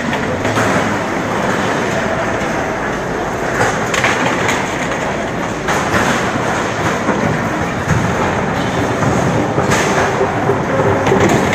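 Loud, steady din of a large protest crowd, a dense mass of distant voices and street noise, with a few sharp cracks or bangs scattered through it.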